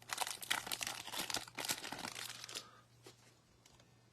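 Baseball card pack wrapper being torn open and crinkled, a dense crackle that dies away about two and a half seconds in, leaving only a few faint ticks.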